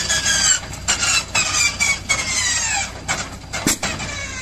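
Shvetsov ASh-62 nine-cylinder radial aircraft engine being started: a high starter whine that slowly falls in pitch, broken by several sharp cracks, the strongest near the end, just before the engine catches.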